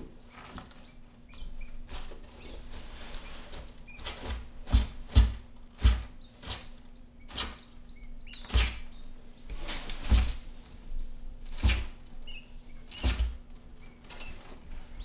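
Argus monitor lizard seizing and swallowing a quail chick in a bathtub: irregular clicks and knocks from its claws and jaws against the tub, with about seven heavier thumps in the second half, and faint short chirps of a quail chick.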